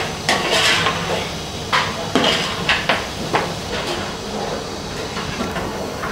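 Metal ladle scraping and stirring thick mutton masala in a large metal pot: a series of irregular scrapes and clanks of metal on metal.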